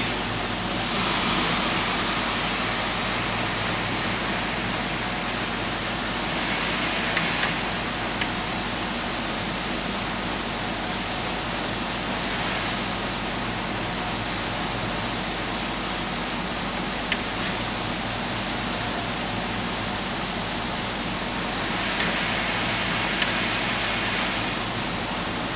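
Steady rushing background noise of a small lab room, with a thin high whine held throughout and a few brief scratchy swells about a second in, around seven seconds in and near the end.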